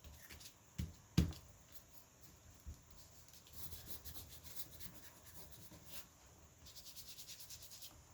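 Paper being crumpled and wrinkled by hand, a fine rapid crackling, with two sharp knocks on the work surface about a second in.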